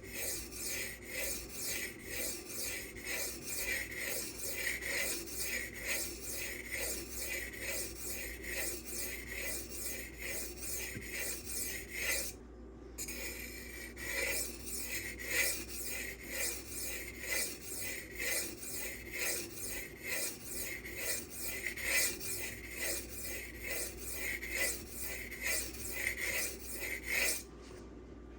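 M390 steel knife blade being stroked back and forth across a silicon carbide whetstone in an even rhythm of about two strokes a second. The strokes pause briefly about twelve seconds in, then resume and stop near the end.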